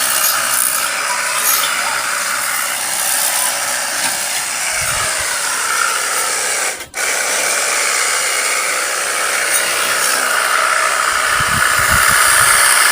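Pressure-washer gun spraying a steady jet of water onto a motorcycle, with a brief break about seven seconds in.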